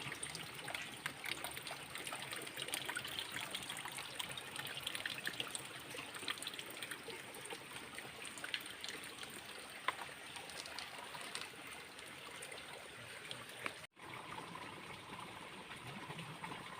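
Water trickling and splashing, with scattered small clicks and knocks and a faint steady high tone above it. The sound drops out for an instant near the end.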